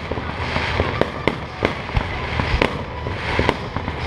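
Aerial fireworks display: shells bursting in irregular sharp bangs, with spells of crackling from glittering bursts between them.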